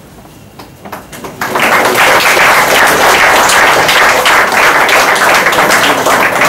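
Audience applauding: a few scattered claps in the first second and a half, then full, steady applause.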